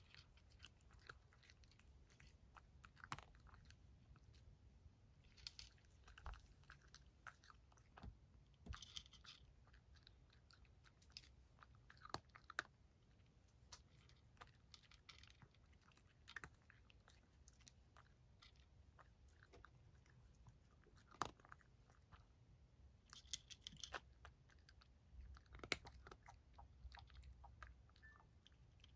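A cat eating dry kibble: faint, irregular crunches and clicks of chewing.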